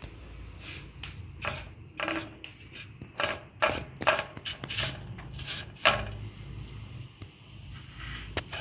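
Fingers rubbing and scraping ground pepper, turmeric and salt together on a metal plate: a run of short, irregular scraping strokes, then a single sharp click near the end.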